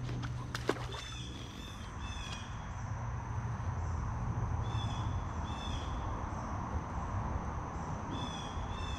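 A bird calling over and over in short, falling high calls, mostly in pairs, over a steady high insect drone that sets in about two and a half seconds in. A single sharp click comes just under a second in.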